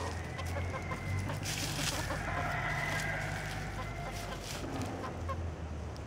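Chickens clucking while they forage, with dry leaves rustling as they scratch and peck, and a drawn-out call from about two seconds in.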